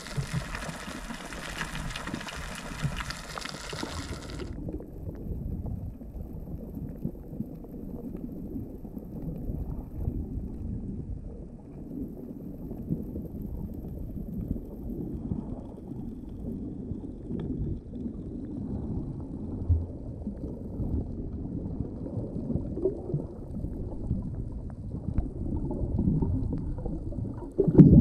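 Muffled underwater sound: a low, rumbling water noise with gurgles and scattered knocks. A brighter hiss in the first few seconds cuts off abruptly about four seconds in, and there is a louder knock near the end.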